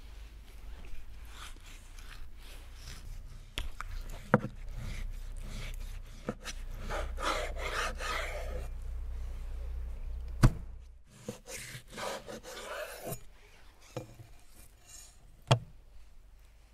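A large knife sawing and scraping through a raw beef rib section on a wooden cutting board, rasping against bone. It is broken by several sharp knocks on the board, the loudest about ten seconds in.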